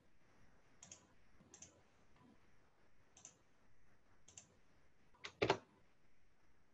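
Faint computer mouse clicks. A few single clicks come roughly a second apart, then a louder pair of clicks about five and a half seconds in, as lines are picked for a trim command in a CAD program.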